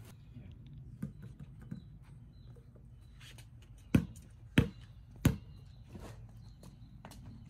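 A basketball bounced three times on brick pavers, the bounces evenly spaced about two-thirds of a second apart, with a couple of faint knocks before them.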